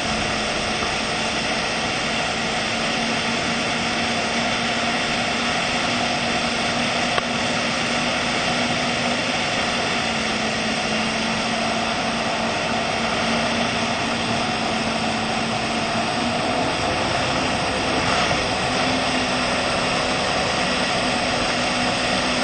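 Motorboat engine running steadily at speed while towing an inflatable tube: a constant drone under the rush of wind and water.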